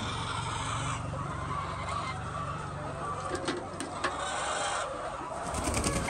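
A flock of laying hens clucking, with a few sharp clicks around the middle.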